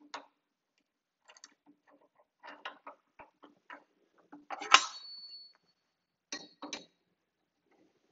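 Small metal clicks and clinks of hand tools working the arbor nut and washers against a high-speed steel Magna Dado blade on a Shopsmith Mark V arbor. A little before five seconds in, one sharper clink leaves a short high ring.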